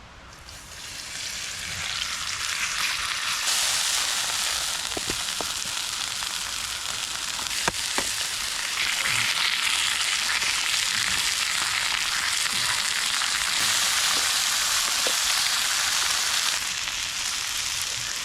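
Steak sizzling over a campfire: a steady frying hiss that swells up over the first second or two, with a few sharp pops.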